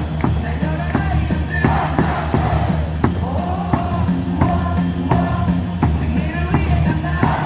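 KBO crowd cheering in unison: many fans singing and shouting a team cheer song over loud amplified stadium music with a steady beat, with sharp claps or drum hits on the beat.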